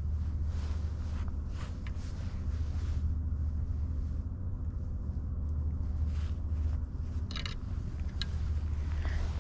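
Steady low rumble of outdoor background noise, with a few brief higher scratchy sounds about one and a half seconds in and again near the end.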